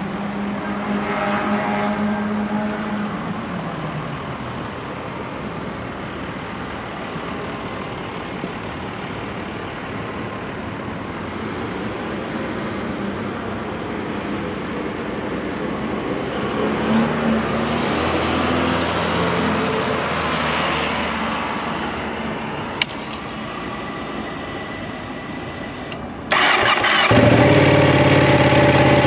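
Steady street and traffic noise, with a vehicle passing early on. Near the end the Ducati 899 Panigale's Superquadro L-twin is cranked, catches, and settles into a loud, steady idle.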